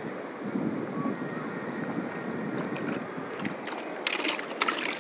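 Steady wind and sea noise, with wind buffeting the microphone. About four seconds in, a quick cluster of knocks and rustles as the akule is lowered into a plastic bucket.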